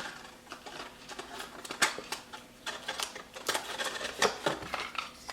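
Stiff paper and tape being handled as a strip of tape is pressed onto a folded paper box: irregular crinkles and light clicks.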